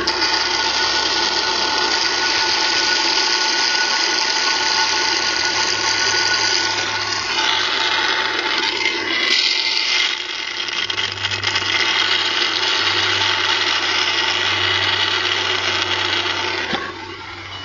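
Oil being sucked out of a compressor sump through a plastic tube by a vacuum pump: a steady suction hiss with high whistling tones over a low pump hum. It cuts off near the end.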